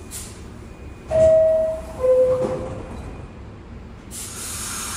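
A New York City R62-family subway car's two-tone door chime, a high note then a lower one, signalling that the doors are about to close. Near the end a steady hiss sets in as the train gets ready to move off.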